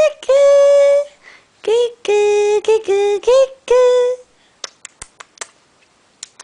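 A young child crying in a run of long, high-pitched wails, then a few sharp clicks near the end.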